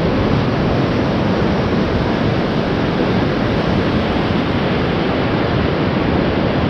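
Surf washing up the beach, mixed with wind on the microphone: a steady rushing noise with no let-up.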